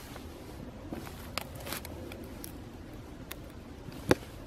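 Knife cutting the tail off a firm dead mackerel on a plastic tackle-box lid: a few faint clicks and scrapes, then a sharper tap about four seconds in.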